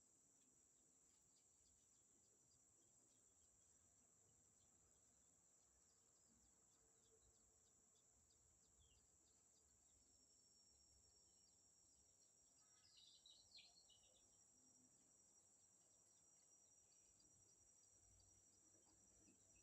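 Faint, steady high-pitched drone of crickets or other insects, with a brief burst of a few quick chirps from a bird about two-thirds of the way through.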